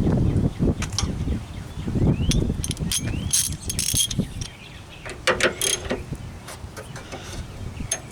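Hand ratchet turning the tailgate latch bolts, its pawl clicking in short runs, mixed with knocks and handling of the metal latch parts.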